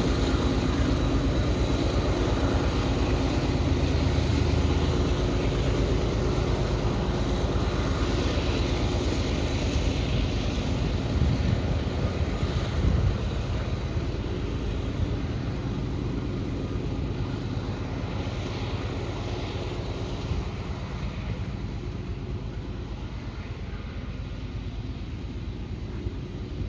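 Union Pacific diesel locomotive engine running with a steady low drone as the locomotive pulls slowly away, the sound fading gradually.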